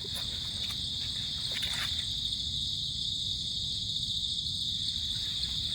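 Steady chorus of night insects such as crickets, a continuous high, finely pulsing chirring, over a low rumble.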